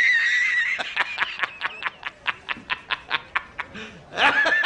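A man laughing hard: a high drawn-out 'haaa', then a fast run of short 'ha-ha-ha' pulses, about five a second, then another drawn-out 'haaa' starting near the end.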